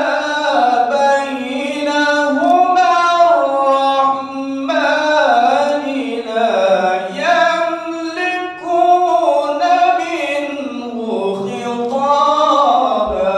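A male qari reciting the Quran in the melodic tilawah style: a single voice holding long, ornamented notes that glide up and down in pitch.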